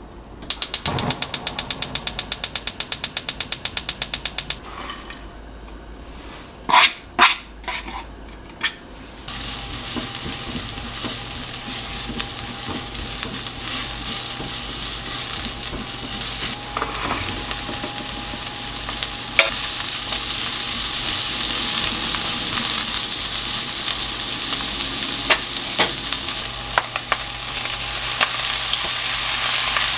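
Rapid even clicking, about ten a second for four seconds, then a few clinks of utensils. About nine seconds in, food starts sizzling in a hot pan and grows steadily louder, with occasional clinks of a spatula or spoon against the pan.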